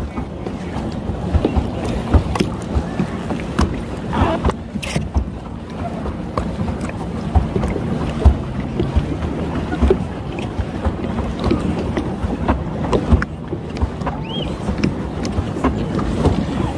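Lake water splashing and lapping against a plastic pedal boat's hull as it is pedalled along, with many small irregular splashes, wind buffeting the microphone, and a steady low hum underneath.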